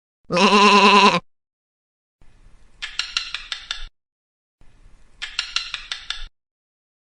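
Hornbill calling: one short wavering call of about a second, then two rapid rattling series of clicks, each about a second and a half long.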